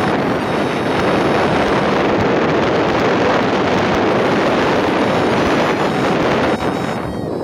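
Steady wind rushing over the microphone of a moving motorcycle, drowning out everything else; it drops a little near the end.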